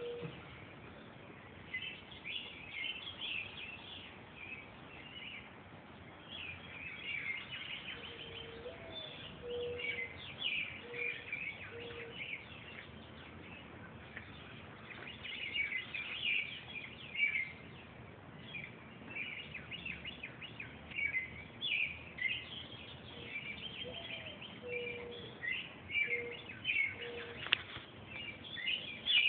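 An owl hooting in two short series about fifteen seconds apart, each a low gliding hoot followed by several short level hoots, over a busy chorus of songbirds chirping, which is the louder sound.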